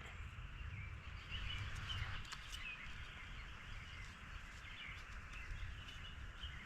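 Faint outdoor ambience: a steady hiss with a low rumble, and scattered small bird chirps.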